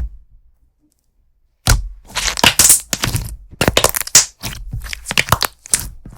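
Slime being squished and pressed by hand for ASMR: a single click at the start, then from nearly two seconds in a dense run of quick crackling pops.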